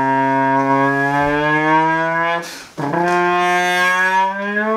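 Trombone blowing two long, loud held notes, each sliding slowly upward in pitch with a short break between them, imitating a supercar's exhaust revving up through the gears.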